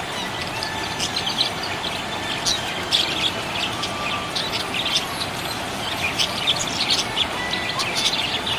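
Small pet parrots chirping: many short, quick, high chirps in an irregular stream, over a steady hiss.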